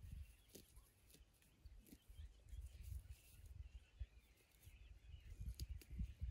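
A sheep cropping grass close by: faint, scattered tearing and snipping clicks, with birds chirping faintly and a soft low rumble.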